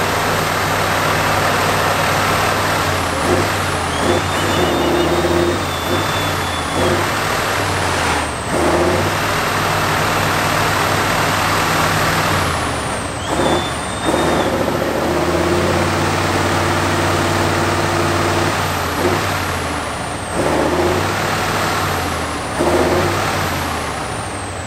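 Tatra 815 6x6 truck's diesel engine revving and labouring under load as it crawls through deep mud, its pitch rising and falling with the throttle and dipping briefly a couple of times. A high whistle rises and falls along with the revs.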